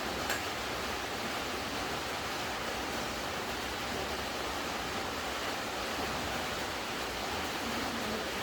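Steady rain falling, an even unbroken hiss, with one faint tick just after it begins.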